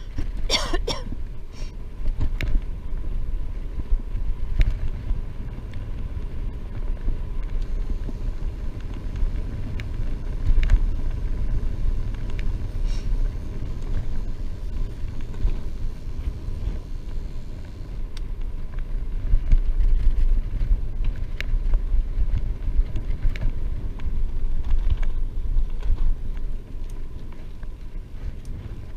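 Wind buffeting the microphone of a camera on a moving bicycle: a low rumble that swells and falls in gusts. A brief sharp sound comes about half a second in.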